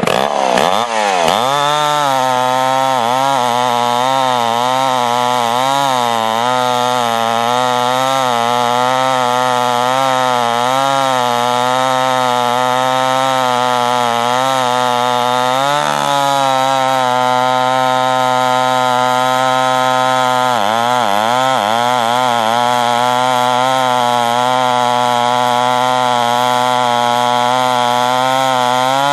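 Homelite Super XP-1050 two-stroke chainsaw engine running steadily, coming up to speed in the first second or so. Its pitch wavers up and down about twice a second, with brief dips in speed about halfway through and again a few seconds later.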